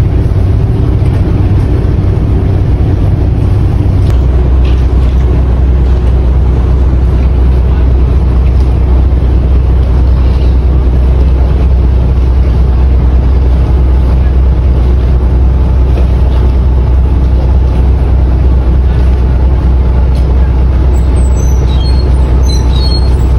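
Fishing vessel's engine running steadily, a loud low drone heard on board as the boat manoeuvres in harbour. About four seconds in, the drone shifts lower.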